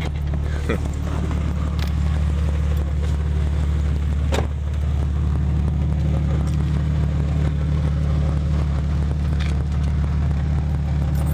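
Truck engine idling through a straight-piped exhaust, a steady low rumble from close to the pipe and its freshly refastened flange. A single sharp click about four seconds in.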